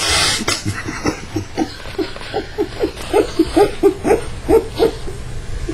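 A short loud rush of noise, then a quick run of short laughs, about four a second, growing louder partway through.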